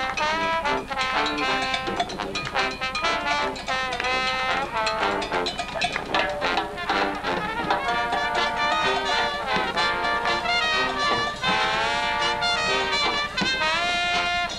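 Live brass band playing, trumpets and other horns carrying a bright melody over a steady drum beat.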